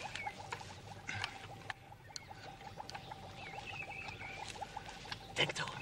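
Faint rustling and crackling of leaves and twigs in undergrowth, with a few short high squeaks in the middle and a louder rustle near the end, over a steady faint hum.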